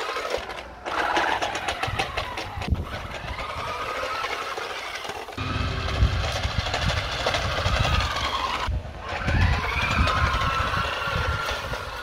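Toy remote-control car's small electric drive motor and plastic gears whining, the pitch rising and falling again and again as it speeds up and slows down, with a fast rattle from the car running over paving slabs.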